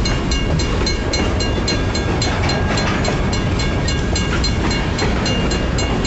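Loaded freight cars of a BNSF grain train rolling past at low speed with a steady low rumble. Over it a railroad crossing bell rings in quick, even strikes, about four a second.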